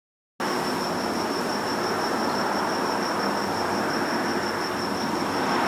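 Steady background room noise: an even hiss with a thin, steady high-pitched whine, cutting in abruptly about half a second in after dead silence.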